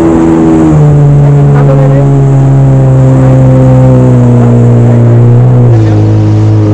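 Jet ski engine running hard at speed, loud and steady; its pitch steps down about a second in, sinks slowly, then drops again near the end as the throttle eases.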